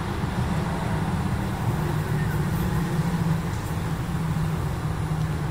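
Steady low rumble of background noise, even in level throughout, with a faint hum running through it.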